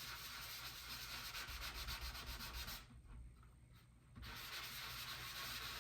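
Hand sanding of cured Bondo body filler with 180-grit sandpaper on a sanding block, in quick back-and-forth strokes. The sanding stops for about a second and a half just before the middle, then starts again.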